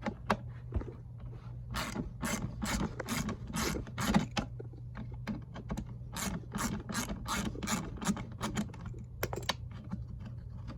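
Hand ratchet clicking in repeated quick strokes as it turns out a bolt on the stock air intake.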